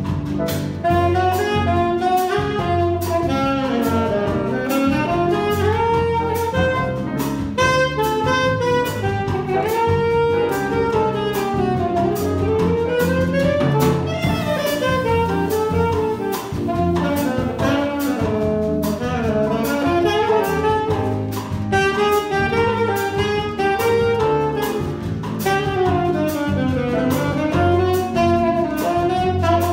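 Alto saxophone playing the lead melodic line over a small jazz combo performing a bossa nova, with piano, guitar, electric bass and drums keeping a steady cymbal pattern.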